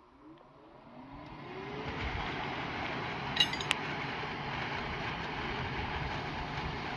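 Electric blower for an inflatable dome air-form spinning up, its whine rising in pitch over about two seconds, then running steadily as it blows air into the form. Two sharp clicks sound about halfway through.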